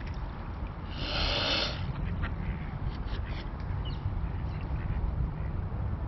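Mute swan giving one loud breathy hiss, about a second in and lasting under a second, over a steady low rumble, with a few faint short ticks later.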